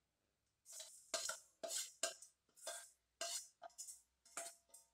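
Steel bowl scraping and knocking against the rim of an aluminium kadai as torn bread pieces are tipped in: a quick, irregular run of short scrapes and clinks, some with a faint metallic ring.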